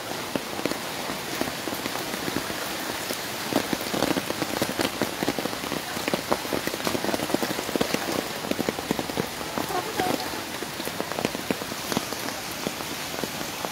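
Continuous patter and splashing of water on floodwater, many small drops and splashes close together, a little louder from about four to ten seconds in.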